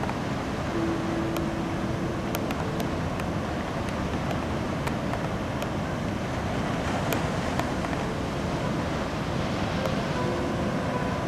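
Steady rush of breaking ocean surf mixed with wind buffeting the camera microphone, with a few faint clicks.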